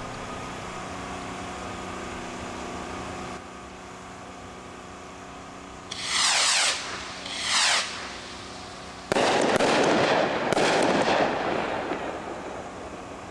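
Sun Ring consumer rockets going up one after the other, each a short whistling whoosh falling in pitch. About nine seconds in they burst with a sudden loud report and crackling, a second burst following about a second and a half later.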